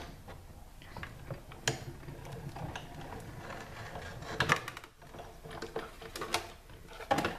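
Sizzix Big Shot die-cutting and embossing machine being hand-cranked, drawing an embossing folder and cutting pad through its rollers with a steady mechanical grinding. A few sharp clicks come through during the cranking.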